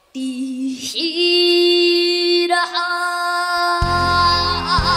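A high, young singing voice opens a song, holding long, stepped notes over almost no accompaniment. About four seconds in, low accompaniment comes in under it and the voice sings with a wide vibrato.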